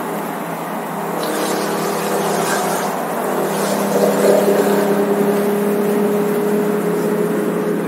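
Car cabin at highway speed: the Nissan V6 engine holds a steady drone over tyre and road noise, growing a little louder about four seconds in.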